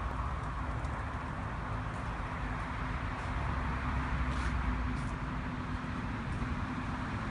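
Outdoor traffic noise: a steady, uneven low rumble with a low hum that fades out near the end, and a few faint high ticks.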